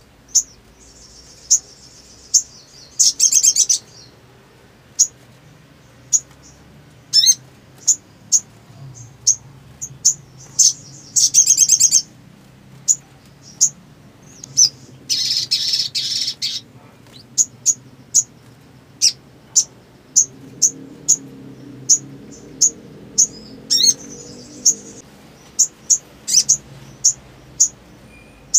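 Sogon (sogok ontong) sunbird calling: a run of short, sharp, high chips about one a second, broken four times by a second-long burst of rapid high trilling song.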